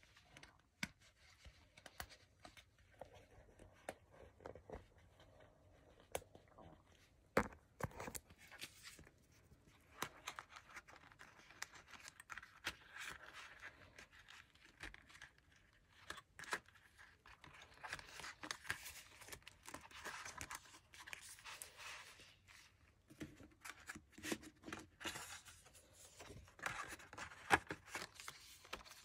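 Faint rustling and crinkling of clear plastic binder envelopes and paper pages being handled and fitted onto a six-ring binder, with scattered sharp clicks and taps.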